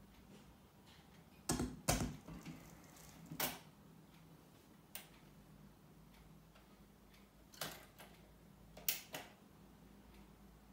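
Automatic record-changer turntable cycling: a run of mechanical clunks and clicks as the mechanism operates, the loudest two about two seconds in and another pair near the end, over a faint steady low hum.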